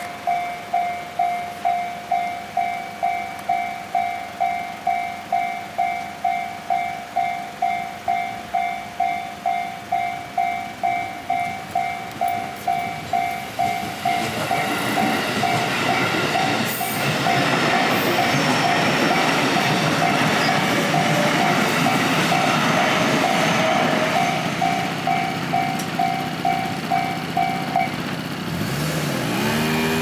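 Japanese level-crossing warning bell ringing, a clanging tone about one and a half times a second. About 14 s in, a train passes through the crossing, its rolling and wheel noise swelling under the bell. Near the end the bell stops as the train clears.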